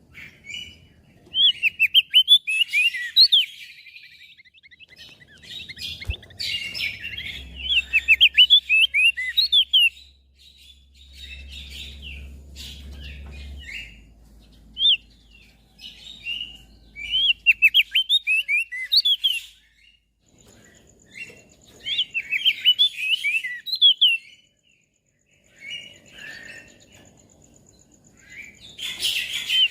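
Crested white-eye (opior jambul) singing: phrases of rapid, high twittering chirps a few seconds long, broken by short pauses.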